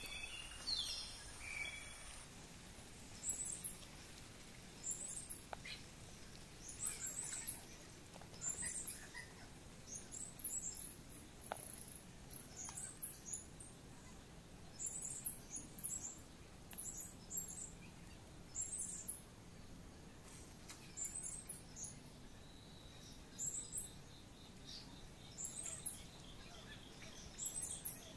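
Small birds chirping: short, very high-pitched calls repeating every second or two, with a few lower chirps near the start.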